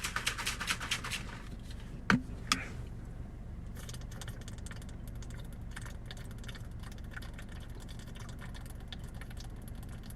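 A person gulping down a drink in a quick run of swallows, followed about two seconds in by two sharp knocks, then a steady low hum.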